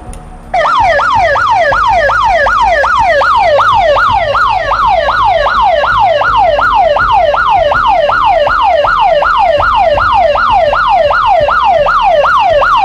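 12-volt electronic alarm siren horn sounding its yelp tone: a loud, rapid wailing sweep repeating about two and a half times a second. It switches on about half a second in, when the red yelp lead is touched to the positive supply, and stops right at the end.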